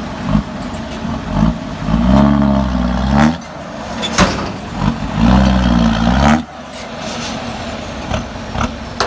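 Ten-wheel dump truck's diesel engine revving twice, each rev rising and falling, as the truck moves with its bed tipped to dump soil. Sharp bangs from the tailgate slamming against the raised bed to knock the load loose, the loudest between the two revs.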